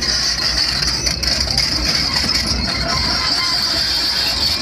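Tracked excavator working a demolition grab on a burnt-out car body: a low diesel rumble under a steady high-pitched squeal as the grab grips and lifts the car, with a few faint metal knocks.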